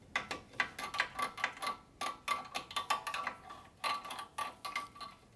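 Metal caliper retaining spring on a Mercedes E350 front brake caliper being pried off with a screwdriver: a run of rapid metallic clicks and scrapes, several a second, over a thin ringing tone from the sprung metal.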